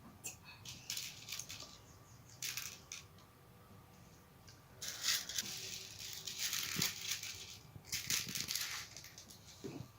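Faint clattering, scraping and rustling of small kitchen items being handled, with denser scraping in the second half.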